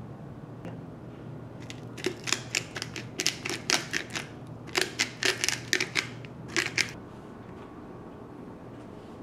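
Seasoning being shaken from a small metal spice tin over lobster tails: a quick, irregular run of sharp clicks for about five seconds, starting a couple of seconds in. A low steady hum underneath.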